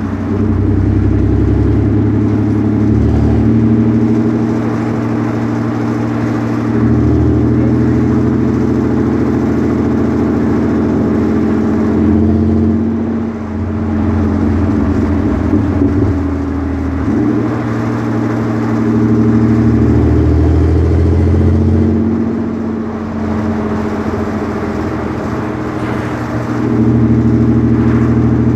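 Chevrolet Blazer's 4.3-litre V6 engine rumbling under way, its pitch and loudness rising and falling several times as it pulls and eases off.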